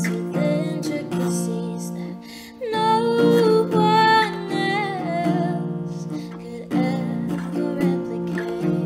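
Live solo song: a woman singing to her own strummed acoustic guitar, her voice strongest about three seconds in.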